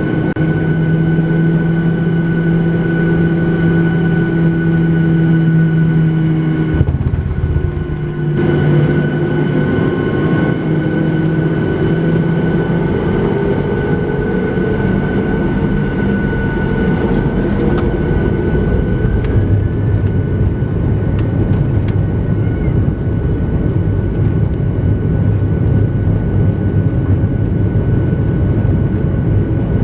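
Boeing 737-800's CFM56 jet engines heard from inside the cabin: a steady hum with a high whine, which about seven seconds in gives way to a denser, even rush of engine and rolling noise that carries on.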